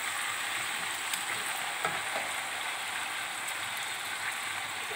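Raw chicken pieces sizzling in hot oil with browned onions and ginger-garlic paste: a steady frying hiss, with a few faint clicks.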